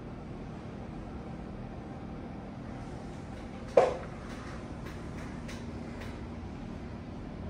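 Steady low room hum, with one sharp knock about four seconds in that rings briefly, followed by a few faint clicks.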